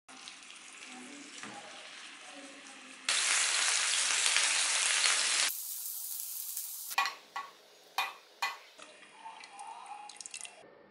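Oil sizzling in a frying pan as goat meat and shallots fry, in several short cuts, loudest for a couple of seconds from about three seconds in. Between about seven and eight and a half seconds there are a few sharp knocks of a cooking utensil.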